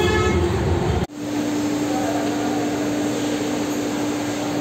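Low rumble for about a second, then an abrupt change to a steady machine drone with one held, even tone over a hiss.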